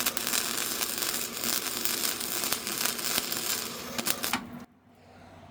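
Electric welding arc crackling and sizzling steadily as a bead is laid on steel, cutting off suddenly near the end when the arc is broken.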